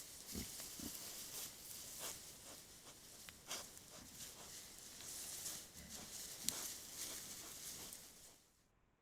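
Wild boar grunting and rustling close to a trail camera, heard as a few short low grunts among scattered rustles and clicks over the camera's steady hiss. The recording cuts off abruptly near the end.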